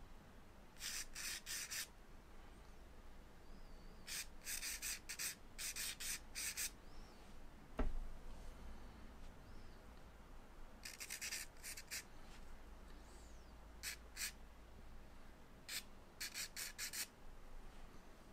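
Soft charcoal stick scratching across drawing paper in groups of short, quick strokes with pauses between them. A single sharp tap about eight seconds in is the loudest sound.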